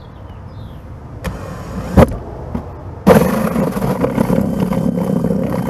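Power drill with a hole saw cutting a round hole through the plastic wall of a catch basin, running steadily under load from about three seconds in. A short sharp knock comes about two seconds in.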